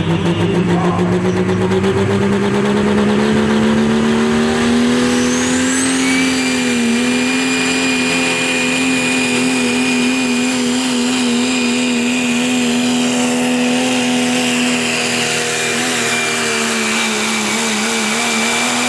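2001 Dodge Ram's Cummins inline-six turbodiesel at full throttle while pulling a weight sled. The engine note climbs for the first six seconds, then holds at high revs with a brief dip about seven seconds in. A high steady whistle joins from about six seconds in.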